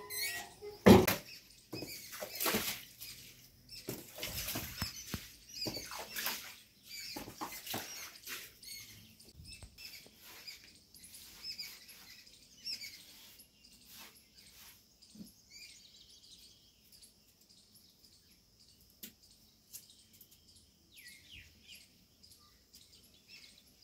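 Scattered scrapes, knocks and rubbing from wiping and cleaning work, busiest in the first eight seconds or so, with faint high chirps of small birds in between.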